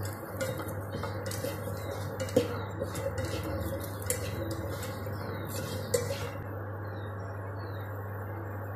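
Slotted spatula scraping and knocking against a nonstick pan while stirring garlic cloves as they dry-roast, with sharper knocks about two and a half and six seconds in. The stirring stops about six seconds in, leaving a steady low hum.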